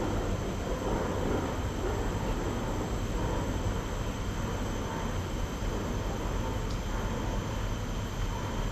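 Steady outdoor background noise: a low rumble with an even hiss over it and a faint steady high hum. A couple of faint ticks come near the end.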